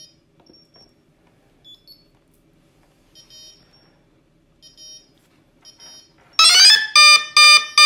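A few faint short electronic beeps, then from about six and a half seconds loud, repeated electronic alarm tones, each rising in pitch, about two a second. They come from RC radio gear just after a Jeti receiver has bound to its transmitter. The tones are loud enough that an apology follows.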